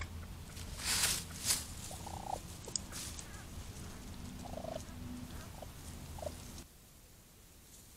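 Four short, clipped calls from a small wild animal, spread over a few seconds, after two loud brief rustling bursts about a second in. A steady low hum runs underneath, and the sound drops away abruptly near the end.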